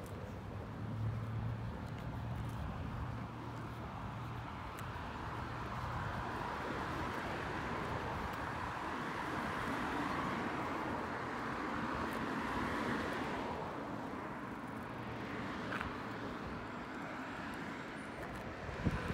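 Street traffic: a vehicle engine humming low and steady, then the rush of a passing car that swells through the middle and fades away. A short sharp knock near the end.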